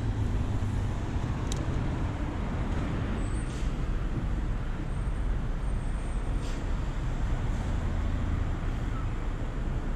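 Steady low rumble of outdoor background noise, a mix of wind on the microphone and distant road traffic, with a few faint ticks.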